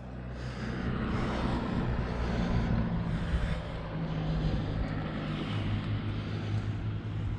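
A motor vehicle's engine hum, swelling over the first second or so and then holding steady, its low pitch sliding slowly down and settling.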